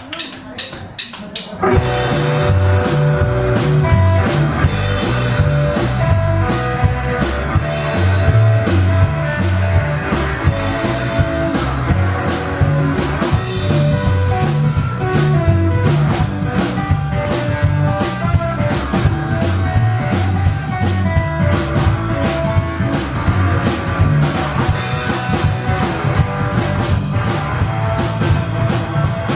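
Rockabilly band playing live: guitar and drum kit over a moving bass line. A quick run of sharp hits leads in, and the full band comes in just under two seconds in.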